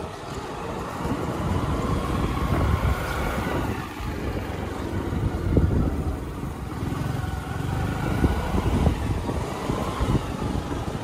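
A two-wheeler riding along, its engine running under a dense low rumble of wind on the microphone, with loudness rising and falling and a few sharp knocks along the way.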